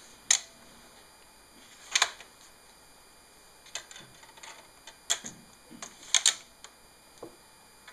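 Plastic clicks and clacks of a laptop's optical drive tray: the tray popping open, a CD being laid on it and pressed onto the spindle, and the tray pushed shut. The sharpest clicks come just after the start, about two seconds in, and as a close pair about six seconds in.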